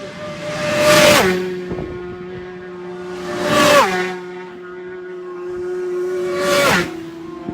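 Three motorcycles passing close at high speed one after another, about three seconds apart, each engine note dropping sharply in pitch as it goes by.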